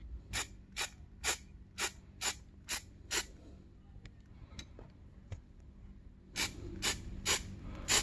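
Aerosol spray-paint can sprayed in short, quick puffs of hiss, about two a second, laying a light first coat of touch-up paint. Seven puffs, a pause of about three seconds with a few faint ticks, then four more near the end.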